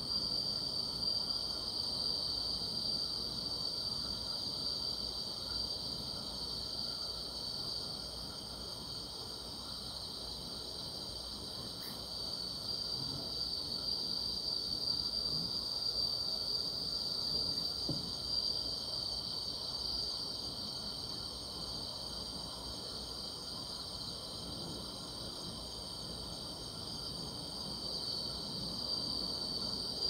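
Steady chorus of singing grass insects on a summer night: a continuous high-pitched trill that never breaks, with a fainter, higher band above it.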